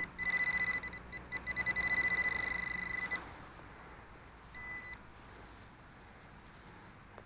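A handheld metal-detecting pinpointer is probed into a hole for a buried coin. Its high beep is held as a steady tone for about three seconds, the sign that it is right on the target, then stops. About a second and a half later comes one more short beep.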